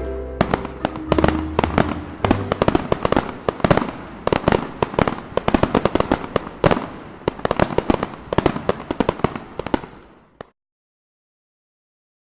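Fireworks exploding in rapid, overlapping bangs and crackling pops, thinning and fading out about ten seconds in, followed by complete silence.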